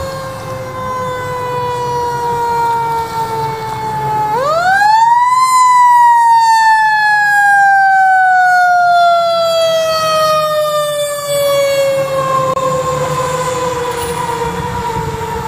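Fire engine's mechanical siren coasting down in pitch, winding back up sharply a little past four seconds in, then coasting slowly down again. A low engine rumble runs underneath.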